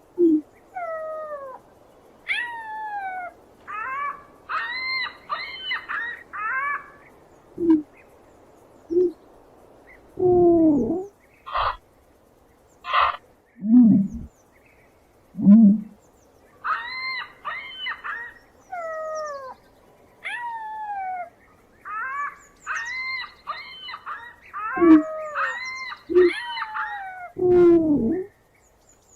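A run of animal calls: repeated falling whistled calls, quick clusters of higher chattering calls, and, loudest of all, a handful of short low hoots scattered through.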